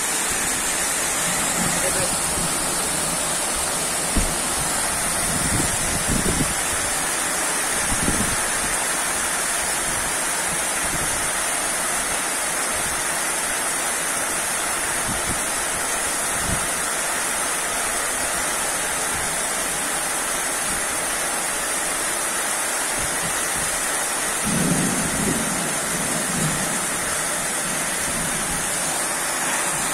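Heavy rain pouring steadily on roofs and street, with a few short low rumbles of thunder, the longest about 25 seconds in.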